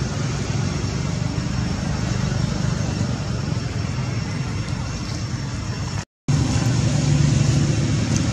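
Steady low rumbling background noise, with a brief moment of total silence about six seconds in.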